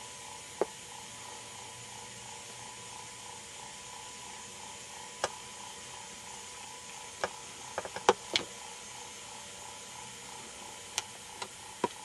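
Steady faint hiss broken by scattered sharp clicks and ticks, bunched about seven to eight seconds in and again near the end.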